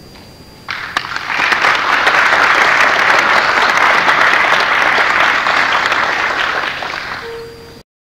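Audience applause breaks out suddenly about a second in, holds steady, and cuts off abruptly near the end.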